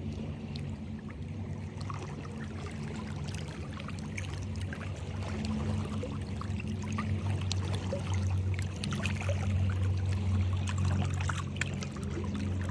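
Water pouring and trickling, full of small splashing droplet ticks, over a low steady hum.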